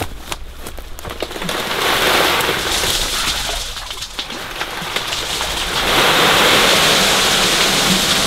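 A wheelbarrow load of gravel tipped out into a stream: stones rattle and slide off the metal tray and splash into the water in two pours, a shorter one about two seconds in and a longer, louder one from about six seconds in.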